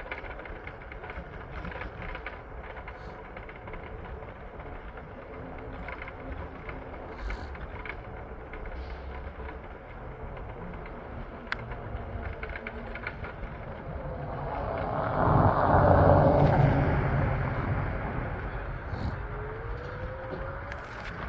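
Steady traffic noise with one vehicle passing close: it swells over about two seconds, is loudest about sixteen seconds in, then fades. A short rising tone follows near the end.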